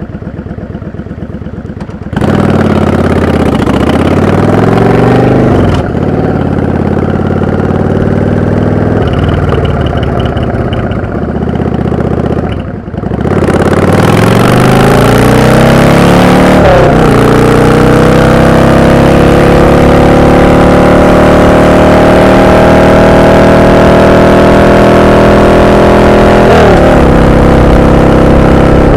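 Yamaha V-Star XVS650 bobber's air-cooled V-twin, heard from the rider's seat: idling briefly, then pulling away about two seconds in and accelerating up through the gears, the pitch rising in each gear and dropping at each shift. Around twelve seconds in the throttle briefly closes, then the engine pulls steadily for a long stretch in a higher gear, with another shift near the end.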